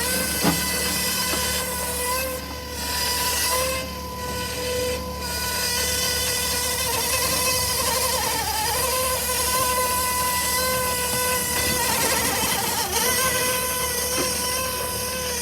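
Mammut SK650 electric skid steer running while its bucket digs into hard clay: a steady electric whine with no engine sound, its pitch dipping briefly about eight and a half seconds in and wavering again around twelve to thirteen seconds. A short knock sounds about half a second in.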